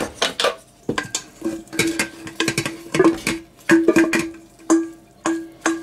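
A utensil clinking and scraping against the slow cooker's crock and a steel mixing bowl as shredded pork is moved back into the pot, in a quick run of clicks. A low steady tone comes and goes from about a second and a half in.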